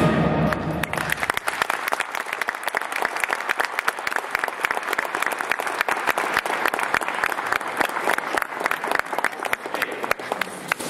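A brass band's last chord dies away within the first second as an audience applauds, with dense, irregular clapping.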